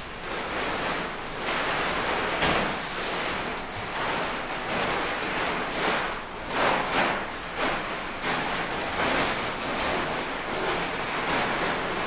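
Rushing, surf-like noise that swells and fades several times, loudest about two and a half seconds in and again around the middle.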